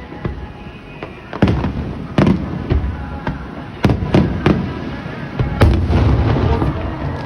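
Aerial fireworks shells bursting overhead: a rapid, irregular string of sharp bangs, each trailing off in a low rumbling echo, with the heaviest cluster starting about a second and a half in.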